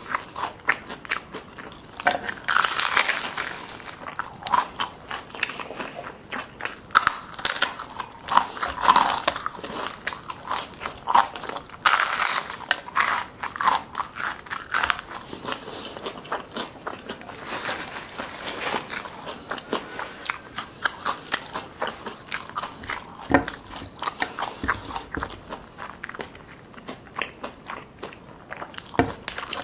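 A person biting into and chewing deep-fried soft-shell crab: a run of irregular, crisp crunches.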